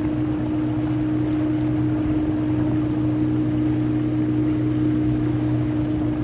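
A boat's motor running steadily at a constant pitch under an even rush of wind and water noise.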